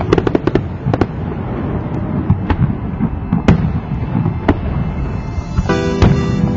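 Fireworks going off: a quick volley of sharp bangs at the start, then single bangs about once a second over a low rumble. Music with steady notes comes in near the end.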